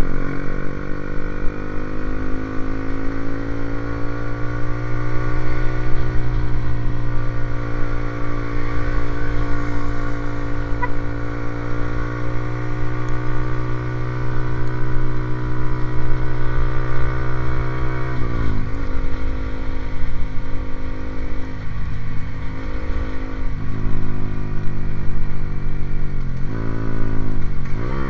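Motorcycle engine with an aftermarket racing exhaust running at a steady speed, its pitch climbing slowly over the first few seconds and then holding. Twice, about two-thirds through and near the end, the engine speed drops briefly and picks straight back up.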